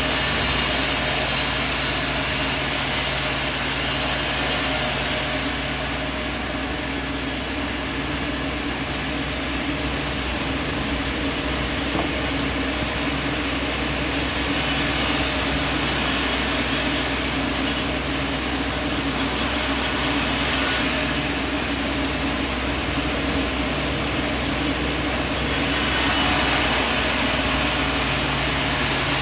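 Band sawmill running steadily over a constant low hum. Its higher hiss fades about five seconds in, then comes back in stretches and is strongest near the end.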